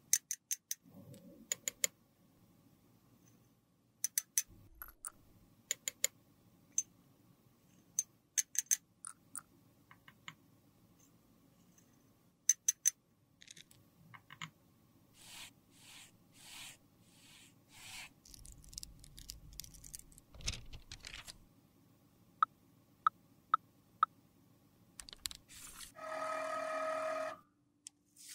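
Small metal spoon clinking and tapping against a small glass beaker and metal eyeshadow pans while scooping and pressing loose powder, with soft scrapes in between. Near the end comes a steady electronic beep about a second and a half long.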